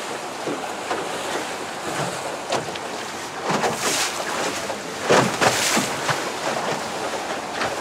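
Water splashing and slapping against the hull of a small motorboat running through choppy sea, with wind buffeting the microphone. The splashes come irregularly, loudest about five seconds in.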